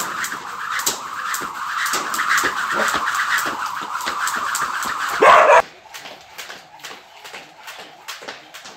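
Jump rope slapping the floor in a quick, even rhythm of clicks. For the first five and a half seconds it sits under a loud, steady, higher-pitched noise that swells sharply and then cuts off; after that the rope clicks go on more quietly on a tiled floor.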